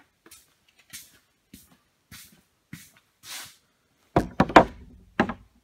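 Soft scuffing steps about every half second, then a quick cluster of loud, sharp knocks about four seconds in.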